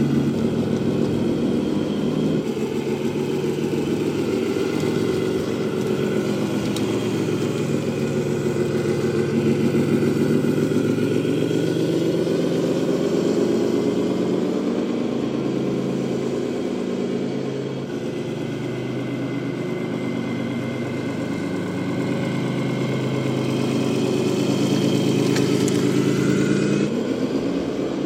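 Simulated diesel truck engine sound from the sound module of a 1/14 scale Tamiya Scania RC truck, running continuously with its pitch stepping up and down as the throttle changes.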